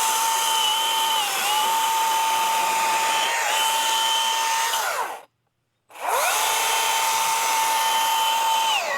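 Milwaukee M18 cordless top-handle chainsaw's electric motor and chain running at full speed, dipping slightly in pitch twice under light cutting load. It cuts out about five seconds in, whines back up a second later and winds down near the end. The owner is barely pushing and takes the weak cutting with a brand-new chain for a saw on its way out.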